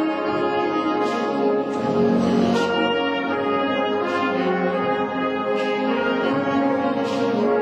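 Brass and reed band playing held chords that change every second or so.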